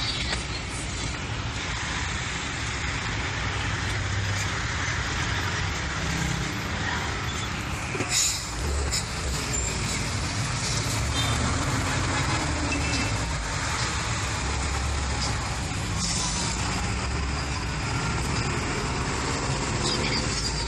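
Engine and road noise heard from inside a moving vehicle in city traffic: a steady low rumble with traffic around it, and a single sharp knock about eight seconds in.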